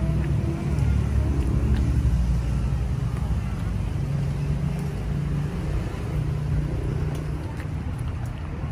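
Steady low rumble of a vehicle engine running, with faint voices in the background.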